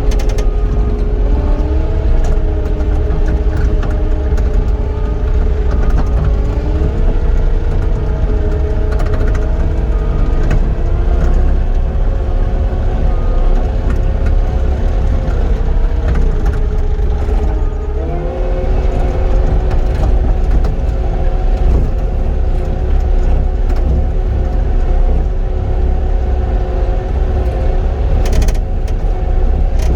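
Cat 259D compact track loader's diesel engine running under working load, its pitch stepping up and down several times as load and throttle change.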